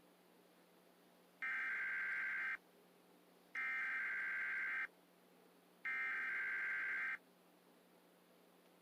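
A steady electronic tone, like a telephone ring signal, sounding three times, each lasting a little over a second with about a second between them.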